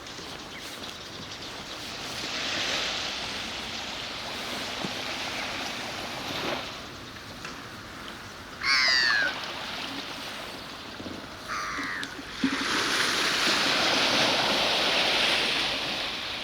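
Sea water washing in waves that swell and fade, with a loud harsh bird call about nine seconds in and a shorter one about three seconds later.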